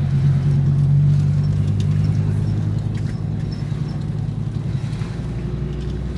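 Fiat Marea 2.4's five-cylinder engine running steadily as the car is driven: a low engine drone that eases off slightly a couple of seconds in.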